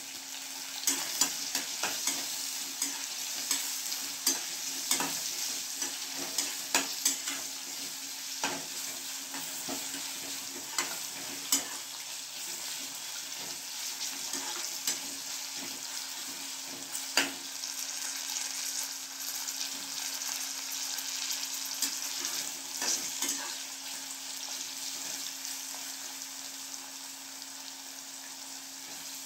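Sliced onions, green chillies and cashews sizzling in hot oil in a pan while a steel slotted spatula stirs them, the spatula clicking and scraping against the pan, most often in the first half. The onions are being sautéed until they turn translucent.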